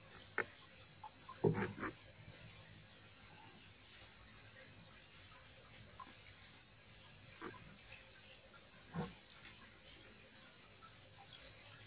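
An insect drones steadily at one high pitch, with a fainter short chirp about every second and a half. A few faint knocks come through, the loudest about one and a half seconds in.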